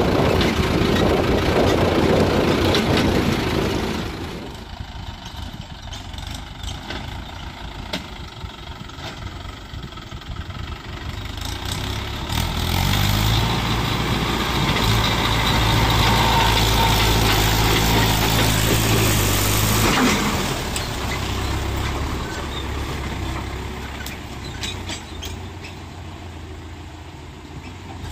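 Tractor diesel engine running, heard close up for the first few seconds, then suddenly quieter. A loaded tractor and trolley then draw near with a steady low engine note that is loudest about halfway through, and it fades as they drive away.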